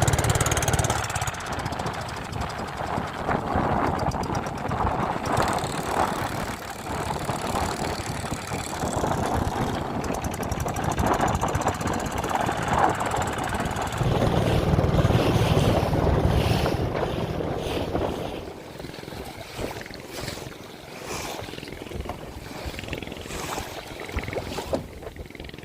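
Boat engine running out on open water, with strong wind buffeting the microphone in gusts; the whole sound drops noticeably in loudness about three-quarters of the way through.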